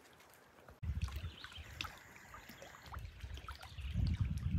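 Small waves lapping and splashing against shoreline rock, with wind buffeting the microphone in an irregular low rumble. It starts abruptly about a second in, after near quiet, and grows louder toward the end.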